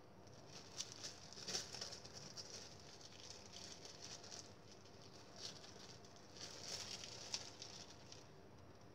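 Faint rustling of a clear plastic bag worn as a glove, with soft pats and scrapes of a silicone spatula shaping grated cassava dough on the palm, in short irregular bursts.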